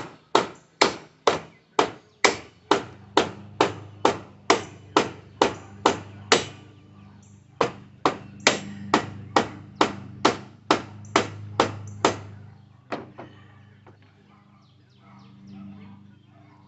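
Hammer blows in a steady rhythm, about two a second, pausing briefly about six seconds in and stopping about twelve seconds in. This is the pounding of trying to knock a stubborn wheel loose from a mobility scooter.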